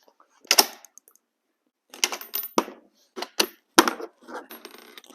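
A Swiss K-31 straight-pull rifle being handled and dry-fired: a series of sharp metallic clicks and clacks as the bolt is worked and the trigger is pulled.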